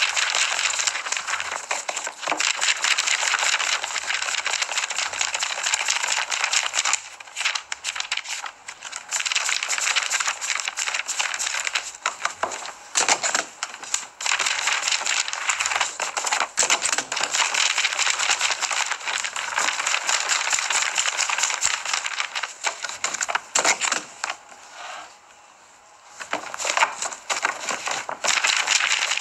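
Sheets of paper rustling and flapping as they are handled and sorted by hand, with short pauses. The longest pause comes about 25 seconds in.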